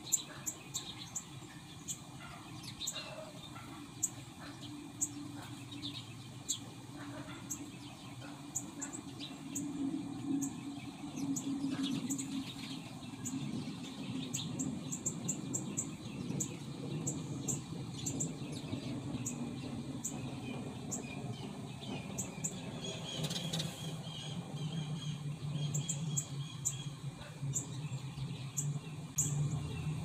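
Birds chirping at dawn, many short high calls scattered throughout, over a low steady rumble that grows louder in the second half.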